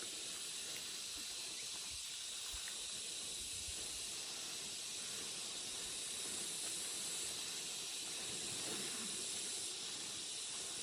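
A steady, high-pitched hiss that holds evenly throughout, with a few faint ticks.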